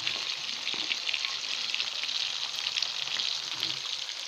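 Fish frying in hot oil in a pan: a steady sizzle full of small, rapid crackles.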